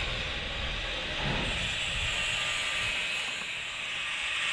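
Angle grinder grinding a ceramic tile: a steady gritty hiss, with a low rumble underneath that drops away about three seconds in.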